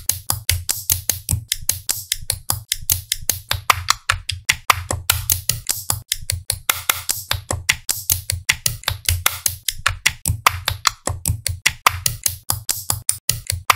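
Background music: a fast, clicking percussion beat, about four to five clicks a second, over a low bass.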